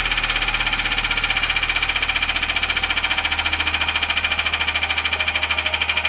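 Hydraulic press pump running with a fast, even pulsing as the ram lowers onto a Rubik's cube; its low hum shifts up in pitch about halfway through.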